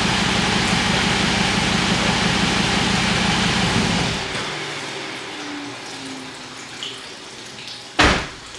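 Dodge Charger engine running with an intake whine, shut off about four seconds in, its sound dying away over a second or so. A single loud thump near the end.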